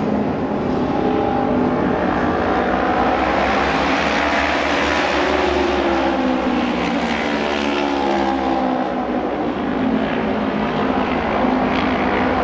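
Japanese auto race motorcycles, 600 cc twin-cylinder racing engines, running hard on practice laps, several at once, the engine note rising and falling as the bikes sweep past.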